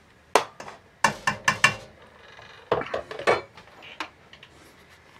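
A metal serving spoon clinking and scraping against a blue enamelled pot while stirring a thick clam chowder: a series of sharp clinks in several quick clusters, thinning out near the end.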